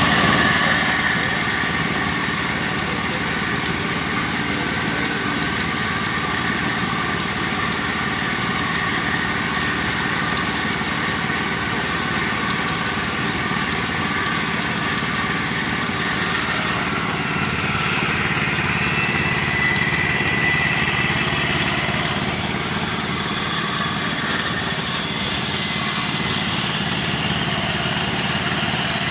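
Small engine running a half-scale sawmill, a steady mechanical drone with a thin high whine, briefly busier and brighter between about 17 and 22 seconds in.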